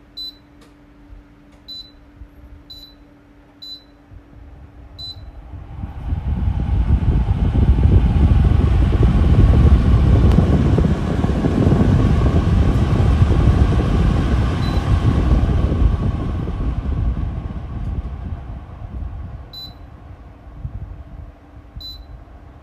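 Cornell Air Zen air purifier: its control panel beeps five times as buttons are pressed over a low hum, then the fan speeds up and runs loudly for about ten seconds before gradually slowing down. Two more beeps come near the end.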